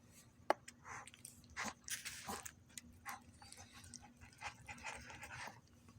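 Cats eating: faint, scattered crunching and chewing, with a sharp click about half a second in.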